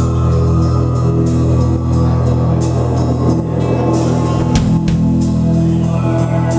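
Live rock band playing an instrumental stretch, loud and heavy in the low end: electric guitar, bass, drum kit with repeated cymbal hits, and keyboards.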